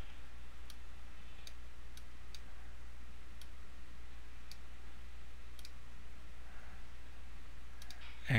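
Computer mouse clicking: faint single clicks at uneven gaps, about eight in all, with two close together near the end, over a steady low hum.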